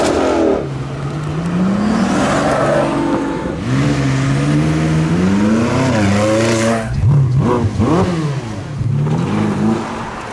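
A high-performance car engine accelerating hard, its pitch climbing in long pulls and dropping back at each gear change. About seven seconds in come a few quick, sharp revs before another climb near the end.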